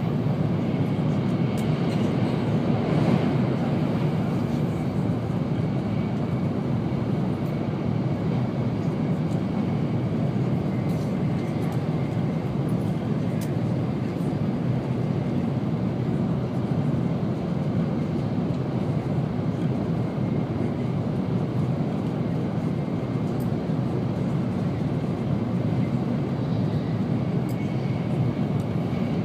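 Steady low rumble of an N700 series Shinkansen running at speed, heard from inside the passenger cabin, with a faint steady high tone above it.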